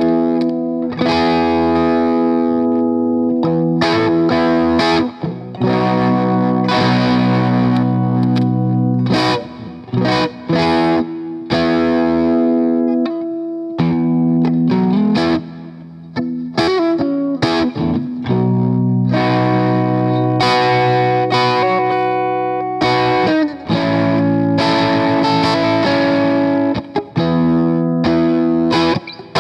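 Electric guitar played through a Boss Blues Driver BD-2 overdrive pedal: strummed and picked chords and notes with a mild, sustaining overdrive, a few short pauses between phrases.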